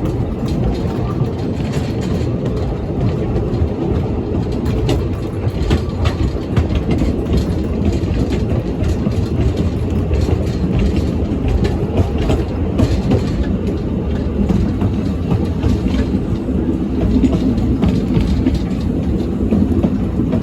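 Narrow-gauge train running along the line with its coaches: a steady rumble of wheels on track, with scattered clicks from the rail joints.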